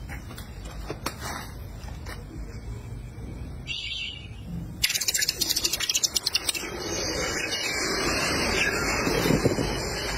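Molten gold poured from a crucible into a pan of water, crackling sharply as it first hits about halfway through and then sizzling loudly and steadily as it quenches, over a low rumble.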